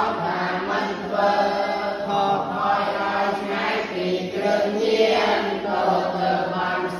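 A voice chanting a Khmer verse poem on the consonants of the Khmer alphabet, in a slow melodic recitation with long drawn-out, gliding notes. A steady low drone runs underneath.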